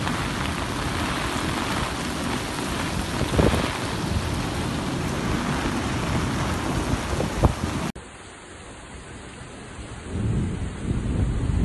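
Torrential downpour from a cold-drop storm, rain pouring heavily and steadily, with a couple of sharp bangs, the louder about three and a half seconds in. After about eight seconds the rain sound drops to a quieter level.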